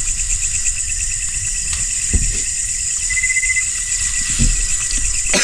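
Crickets and other night insects calling in a steady chorus: a fast pulsing trill with a high hiss above it. A few soft low thumps come in now and then.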